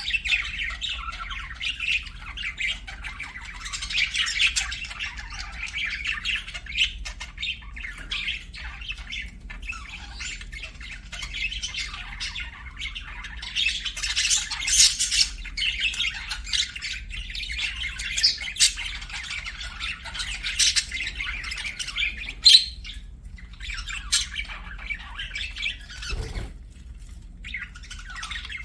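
Budgerigars chirping and chattering continuously in quick, busy trills and squawks, with a short lull near the end.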